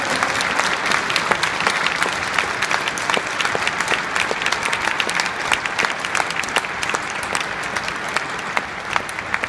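Stadium crowd applauding: a dense clatter of many hands clapping that eases off slightly toward the end.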